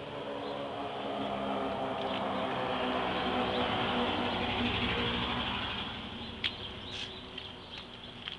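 A passing engine, a low hum of several steady pitches that swells to its loudest about four seconds in and fades away by about six and a half seconds. A couple of sharp ticks near the end.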